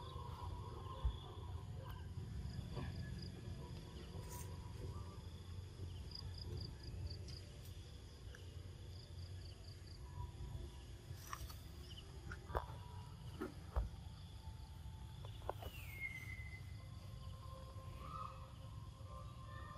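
Outdoor ambience among a troop of macaques: a steady low rumble with faint, rapid high chirping, a few sharp knocks about a second in and twice around twelve to fourteen seconds in, and one short falling call about sixteen seconds in.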